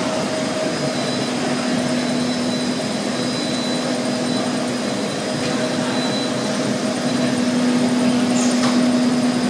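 Automatic UV roller coating machine and its belt conveyor running: a steady mechanical whir and hiss carrying a constant low hum and a fainter high whine.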